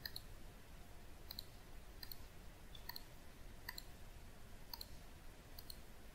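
Computer mouse clicking faintly: about seven quick double clicks, roughly one a second, each a press and release.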